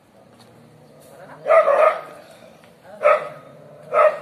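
Street dogs barking at each other in a standoff: a quick double bark, then single barks about a second apart.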